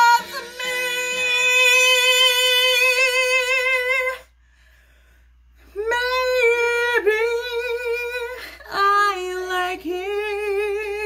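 A woman singing solo, no accompaniment heard: one long held note that ends in vibrato, a pause of about a second and a half, then two slower phrases with held, wavering notes.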